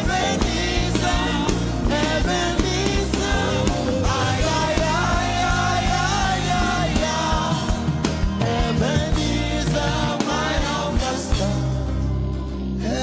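Live gospel worship music: a band playing steadily with a voice singing over it.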